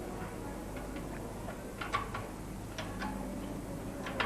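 Scattered light plastic clicks and taps of a floppy drive ribbon cable and its connector being handled and fitted, over a steady low hum.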